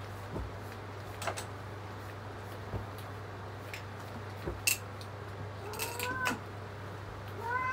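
Domestic cat meowing: one rising-and-falling meow about six seconds in, and a second meow starting near the end, over a steady low hum and a few short clicks.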